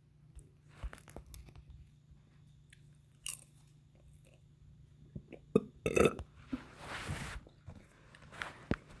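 Someone chewing, with irregular crunches and mouth clicks, and a louder burst about six seconds in.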